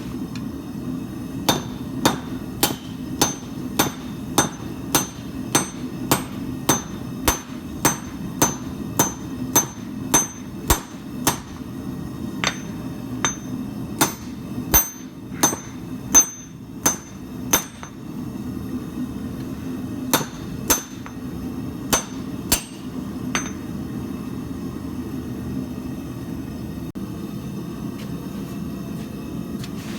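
Hand hammer striking steel on an anvil while forging a knife blade, about one and a half blows a second with a bright ring after each. The blows pause for a couple of seconds, a few more follow, then they stop, over a steady low hum.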